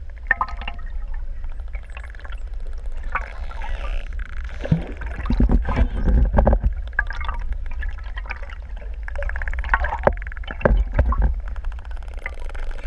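Underwater sound of a pod of pantropical spotted dolphins: scattered clicks and wavering whistles over a steady low rumble of water against the camera housing. The rumble swells loudest about five to seven seconds in.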